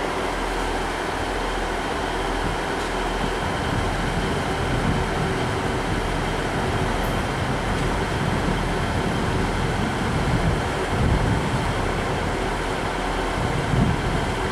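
Stationary Northern passenger train idling at the platform, waiting to depart: a steady engine hum under the station's background noise.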